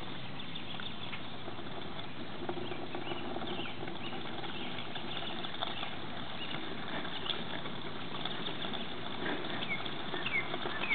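Water pouring steadily from a watering can's spout and splashing over a face and down onto the ground, with a few faint bird chirps now and then.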